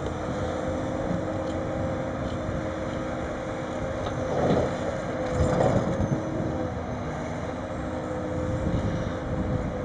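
Sennebogen 870 M material handler working, its engine and hydraulics running with a steady whine. About halfway through, two louder rough thuds come as a grapple-load of logs drops onto a timber truck's load.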